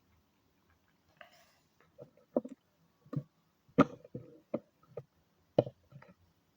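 A run of about ten irregular sharp clicks and taps starting about a second in, the loudest two near the middle and near the end.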